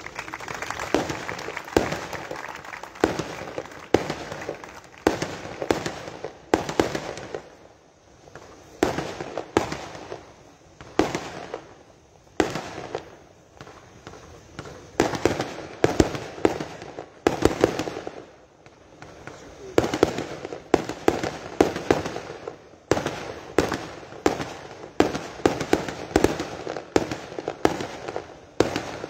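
Fireworks display going off overhead: rapid runs of sharp bangs and crackling, coming in clusters with a few short lulls.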